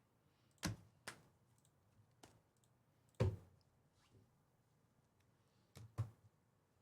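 A few sharp taps and clicks of cards being handled and set down on a table, the loudest about three seconds in and a quick pair near the end.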